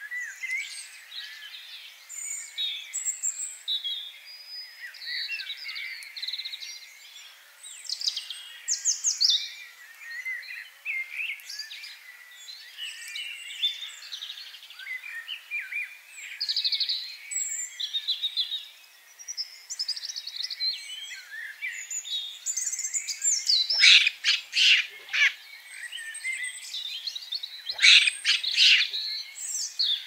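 Several wild songbirds chirping and singing, with short overlapping calls and trills. Two louder bursts of rapid, sharp calls come in the last third.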